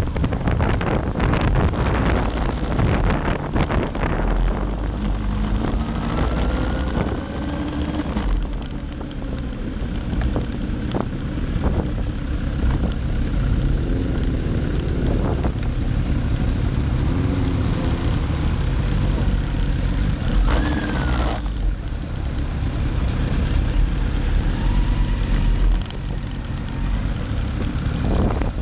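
Motorcycle engine running while riding, with wind rushing over the microphone; the wind noise is heaviest in the first few seconds, then the ride settles to a steadier low rumble.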